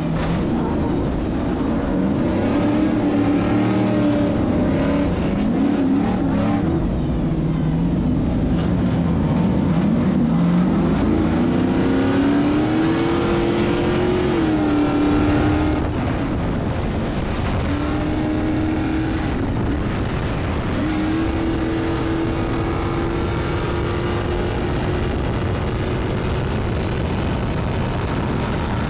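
Stadium Super Truck's V8 engine at racing speed, heard from inside the cab, its pitch climbing and falling as it accelerates and shifts, over road and wind noise. It eases off about halfway through, then holds a steadier note.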